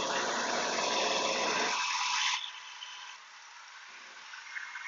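Shopsmith lathe motor running just after switch-on, spinning a square wood blank with no tool touching it. The sound is loud for the first two and a half seconds, then drops to a quieter, steady running sound.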